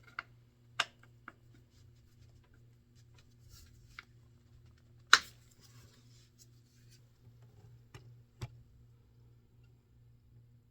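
Scattered light clicks and taps from hands and tools working on the motorcycle during the oil change, with one sharper knock about five seconds in, over a faint steady low hum.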